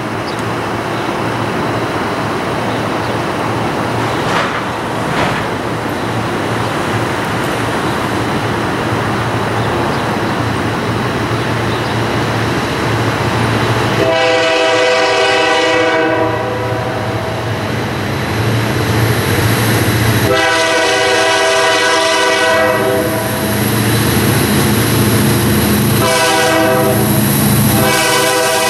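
Canadian Pacific EMD SD40-2 diesel locomotives with 16-cylinder 645 engines approaching a grade crossing, their low engine rumble building. About halfway through, the locomotive horn sounds the crossing signal: a long blast, a second long blast about six seconds later, then a short one and a long one near the end. The crossing bell rings underneath.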